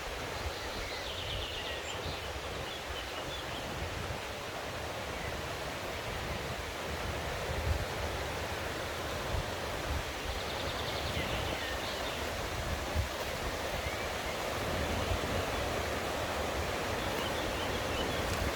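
Mountain stream rushing steadily over its bed, with faint high bird trills twice, about a second in and around ten seconds in.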